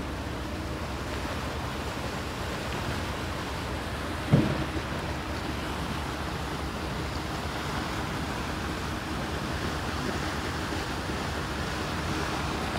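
Steady rush of wind and churning water from a car ferry's wake, with wind buffeting the microphone. A short thump about four seconds in.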